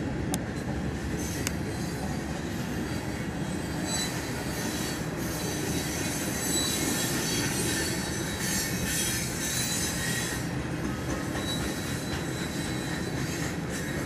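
Coal train's hopper cars rolling past, steel wheels running over the rail joints in a steady rumble, with high-pitched wheel squeal coming and going.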